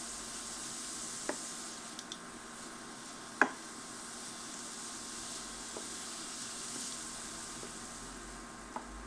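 Diced onion, leek, celery, carrot and garlic sizzling steadily in melted butter in a stainless steel pan, being sweated rather than browned. A wooden spoon stirs them and knocks against the pan a few times, most sharply about three and a half seconds in.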